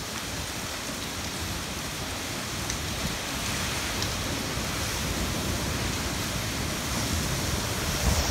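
Typhoon rain and wind, a steady dense hiss that grows slowly louder.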